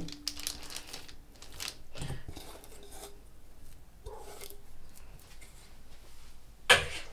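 Parchment paper rustling and crinkling as chilled dough is handled and laid out on it, with a sharper, louder rustle near the end.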